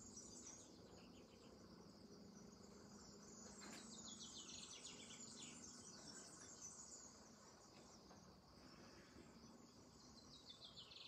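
Near silence with faint outdoor ambience: a steady high insect chirring, with a rapid trill falling in pitch about four seconds in and again near the end.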